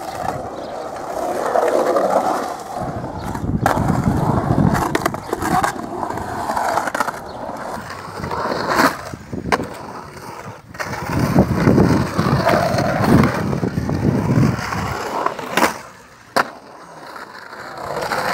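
Skateboard wheels rolling over a concrete bowl, the rumble swelling and fading as the rider carves up and down the walls, with several sharp clacks of the board and trucks striking the concrete.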